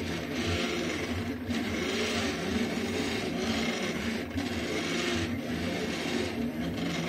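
Delta 3D printer's stepper motors whirring as the print head circles the lamp shade's wall, their pitch rising and falling in smooth swoops, with a raspy hiss that swells and drops about once a second.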